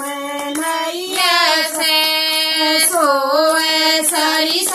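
Women singing a devotional bhajan together, drawing out long held notes, with hand claps keeping time.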